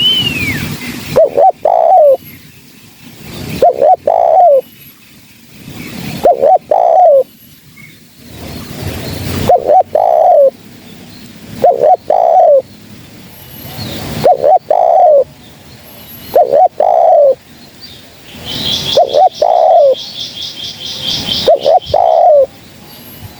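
A spotted dove cooing over and over, one phrase about every two and a half seconds. Each phrase is two quick short notes and then a longer falling coo. A rapid high trill from another bird comes in for about two seconds near the end.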